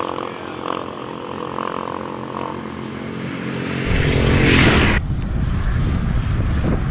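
A motor runs with a steady drone. About four seconds in, the sound switches to a brief rushing noise that cuts off sharply, then a heavy rumble of wind buffeting a camera microphone moving along a road on a bicycle.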